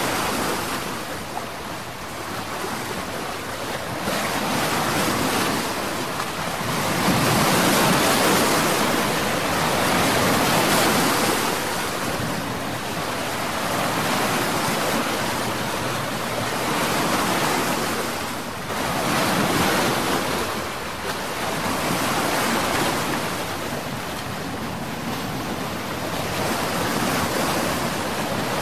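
Sea waves washing, an even rushing noise that swells and ebbs every two to four seconds.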